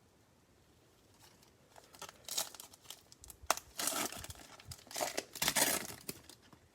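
A foil trading-card pack wrapper from a 2021 Panini Prizm Baseball mega box being torn open and crinkled by hand. The rustling crackle starts about two seconds in and comes in several bursts.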